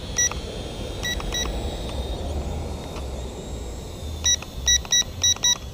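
Short, high electronic beeps from a handheld drone remote controller: one, then two about a second in, then a quick run of five near the end. Low wind rumble on the microphone runs underneath.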